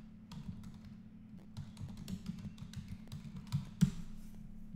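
Typing on a computer keyboard: a run of irregular key clicks, with one louder click near the end, over a steady low hum.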